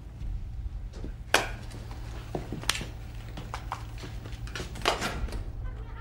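Metal cigarette cases snapping and lighters clicking and striking as several people light cigarettes. There are scattered sharp clicks, with the loudest strikes about a second and a half in, near three seconds and near five, over a steady low hum.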